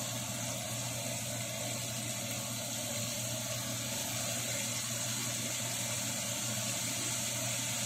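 Flour-coated chicken liver pieces deep-frying in hot oil: a steady sizzle.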